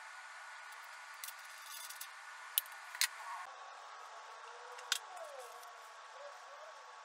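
Plastic quick-release bar clamp being released from a wooden table leg and set down: three short sharp clicks, two close together about two and a half and three seconds in and one near five seconds, over a faint steady hiss.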